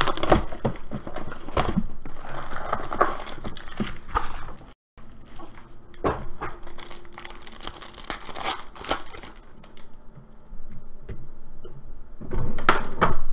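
A cardboard trading-card box being torn open and its foil packs ripped and crinkled, cards handled; a dense run of sharp crackles and rustles that breaks off for a moment about five seconds in.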